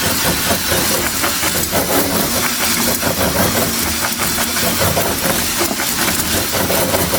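Drill on its low speed setting, running in reverse, spinning an oiled ball-type flex hone inside a rusty air-cooled VW cylinder. A steady motor whir with the scrubbing rasp of the abrasive balls on the bore: the slow first cleaning pass of honing.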